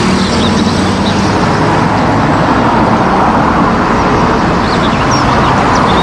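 A double-decker bus driving along a town street in traffic: a steady engine hum under continuous road and traffic noise.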